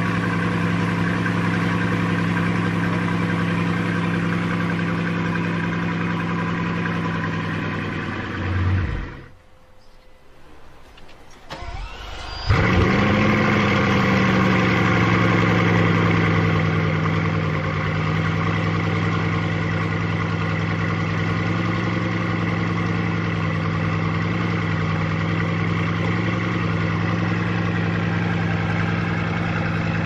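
Bugatti Chiron's quad-turbo W16 engine idling, then shut off about nine seconds in. After about three seconds of quiet it is restarted with a short flare of revs that settles back into a steady idle.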